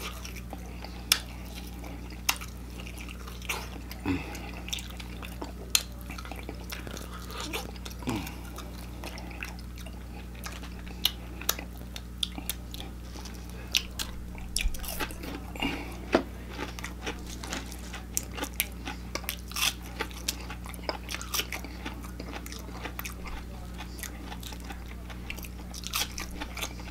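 Crunchy biting and chewing of crispy deep-fried chicken legs and tater tots: irregular crisp crackles and wet mouth sounds. A steady low electrical hum runs underneath.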